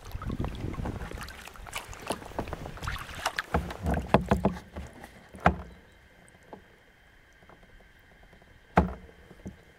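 Kayak being paddled: the blades dip and splash, with drips and small knocks, until about five and a half seconds in. Then the strokes stop and the kayak glides almost silently, with one sharp knock near the end.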